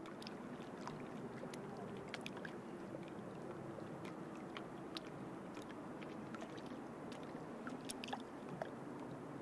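Faint ambience of lake water lapping gently, with scattered small drips and splashes over a low steady rush.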